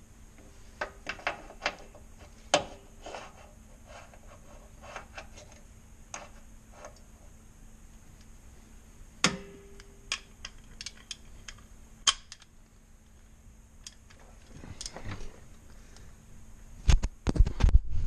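Scattered metallic clicks and clinks of hand tools, a socket and extension being handled and fitted. Near the end come a few louder low thumps and rubbing.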